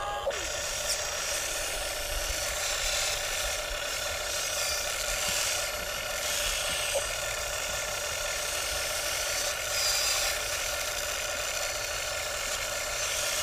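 Electric motors and gearboxes of a radio-controlled model excavator whining as it works its boom, arm and bucket to dig in mud. The whine swells and eases several times as different functions run.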